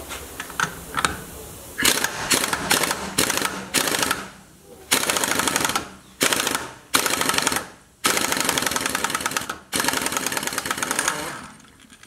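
Pneumatic impact wrench (air gun) hammering on a 30 mm hub/drive-shaft nut to shoot it loose. It runs in repeated trigger bursts, several short ones at first and then longer ones of a second or more, with pauses between.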